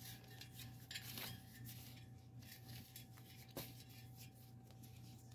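Faint handling sounds of hands working a rubber inner-tube strip around a bicycle wheel rim, with a couple of light clicks, over a steady low hum.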